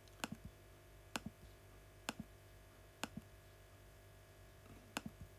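Five sharp taps on an iPad's glass screen, about one a second with a pause near the end, each mostly followed by a fainter second click: healing-brush spots being placed one by one on a photo.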